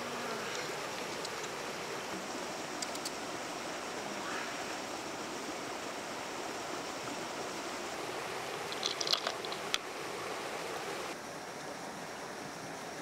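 Steady rushing noise of water, with a few sharp clicks and a quick cluster of taps about nine seconds in.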